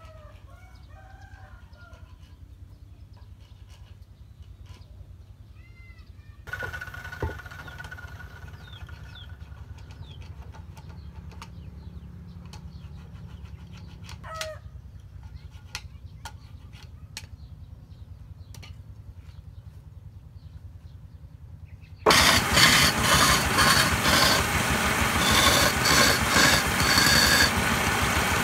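Chickens and a rooster call over a low steady hum, with a few sharp knocks of wood and bird chirps. About 22 seconds in, the loud, dense running noise of an engine-driven, belt-driven wood lathe cuts in, with the rattle and scrape of a chisel cutting a spinning wooden blank.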